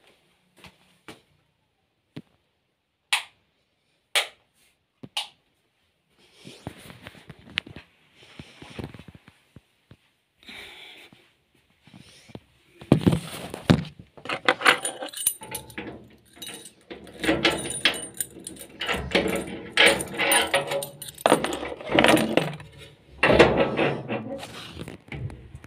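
A few separate sharp clicks, then from about halfway a long, dense run of rapid clinking and rattling as small hard objects are handled.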